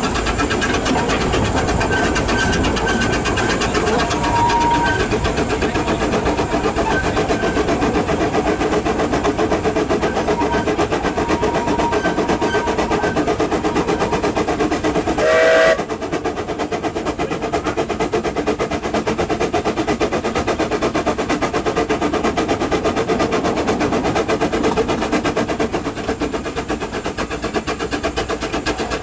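Hunslet saddle-tank steam locomotive Trangkil working a passenger train, running with a rapid, steady exhaust beat. About halfway through it gives one short whistle blast, and the running is a little quieter after it.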